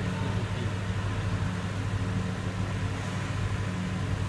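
Steady low mechanical hum that holds even throughout, with no shuttle hits or voices standing out.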